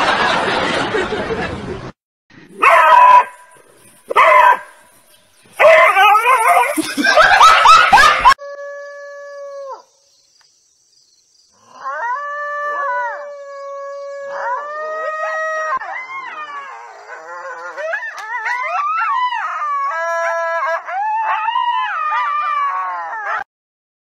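A coyote howling: long, drawn-out calls held on one note that fall away at the end, breaking into quicker, wavering yip-howls in the last several seconds. Before the howling, the first eight seconds hold a loud rushing noise and then three short loud bursts.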